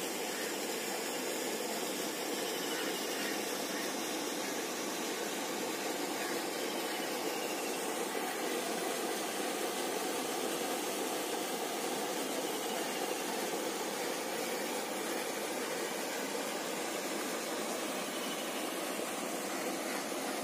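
A steady rushing noise, even and unbroken throughout, with no distinct events standing out.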